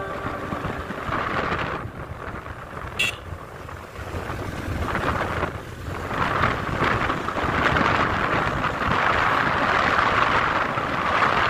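Wind buffeting the microphone of a moving motorcycle, with a rough rushing noise that swells after about six seconds. A short high chirp sounds about three seconds in.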